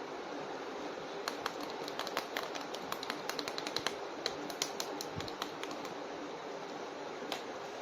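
A plastic action figure being handled: a run of quick, irregular small clicks and taps for a few seconds, starting about a second in, with one more click near the end, over a steady hiss.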